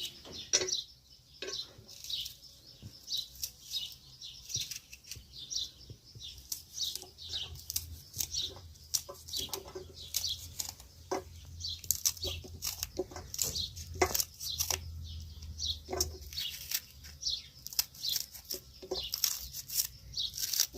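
Birds chirping constantly in many short, high, falling chirps, with scattered small knocks.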